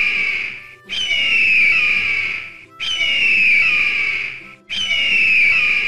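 A bird of prey's scream, presented as the eagle's call: a high screech that falls in pitch, repeated about every two seconds, three times plus the tail of one before. Soft background music runs underneath.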